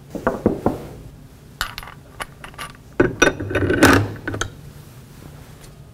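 Small steel tool parts (a socket reducer and the torque checker's adapter) clinking and knocking together as they are handled and fitted. There are a few separate clinks in the first two seconds, then a quicker cluster of knocks and scrapes about three to four seconds in.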